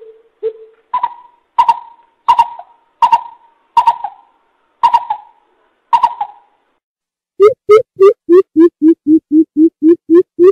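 Coucal (bubut) calling: two low hoots, then a spaced series of higher, sharper notes, then from about seven seconds in a fast, loud run of deep hooting notes, about three or four a second.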